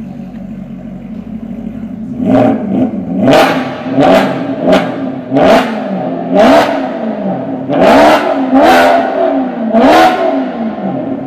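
Maserati GranTurismo V8 breathing through an aftermarket Fi Exhaust, idling and then blipped about nine times in quick succession, each rev a sharp rise and fall in pitch, roughly one a second. The car stands inside a road tunnel.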